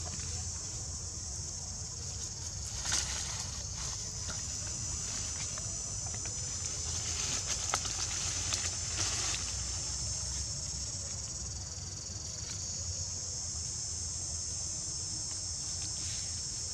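Steady, high-pitched insect drone, with a few soft rustles about three seconds in and again around seven to nine seconds.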